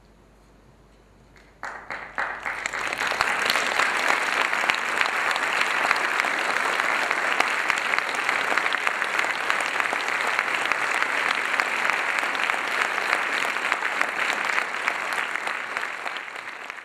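Audience applauding: a few claps break out about a second and a half in, then quickly swell into full, sustained applause that eases slightly near the end.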